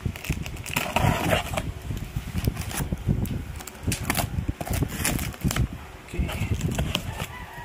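Scissors slitting the packing tape along a cardboard box's seam, with irregular scraping, clicks and the rustle of tape and cardboard.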